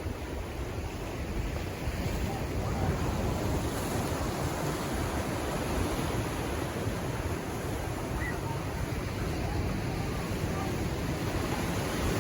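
Pacific Ocean waves washing in, a steady rushing surf noise that swells slightly louder over the stretch.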